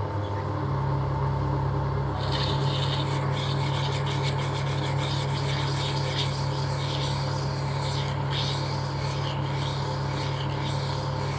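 Lathe running with a steady motor hum while a workpiece spinning in its chuck is polished by hand, giving a fluctuating rubbing hiss from about two seconds in.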